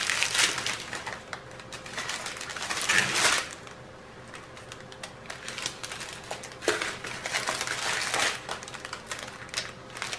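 Crinkling and rustling of joined strips of small sealed foil-and-plastic bags of diamond painting drills as they are handled and unfolded. It comes in bursts, with a quieter stretch in the middle.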